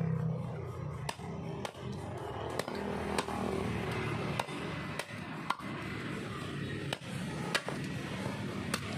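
Hand-made camping axe chopping into the end of a wooden stick on a wooden chopping block, shaping it to a point: about a dozen sharp chops, roughly one every two-thirds of a second.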